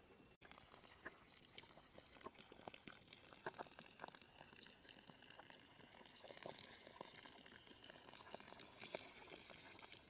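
Faint, scattered clicks and crackles of hands handling a plastic hose fitting against a tree trunk, over a faint steady high-pitched background hum.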